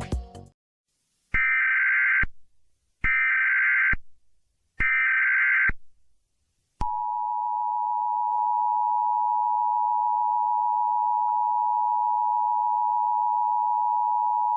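Emergency Alert System SAME header: three short data bursts about a second apart, followed about a second later by the steady two-tone EAS attention signal, which starts about seven seconds in and holds.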